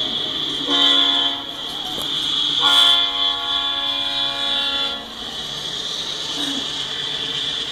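Norfolk Southern diesel locomotive's air horn sounding a chord in two blasts, a short one about a second in and a longer one of about two seconds starting near the three-second mark, as the locomotive signals for a road grade crossing. A steady high-pitched tone runs underneath, and the sound comes through a live train cam's stream.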